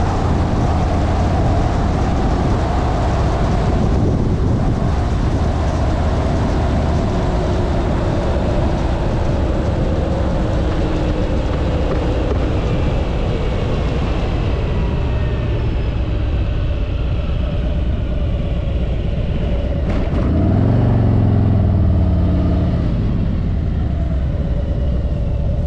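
Vehicle engine running under steady road and wind rumble, its tones falling as it slows down. About twenty seconds in there is a sharp click and a brief rise and fall in engine pitch.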